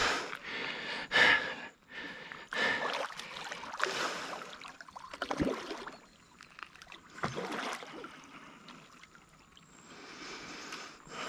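Irregular splashing and scuffling at the water's edge as a large Murray cod is handled in the shallows, with a man's heavy breathing. The bursts are louder and denser in the first half and die down for a few seconds before picking up again near the end.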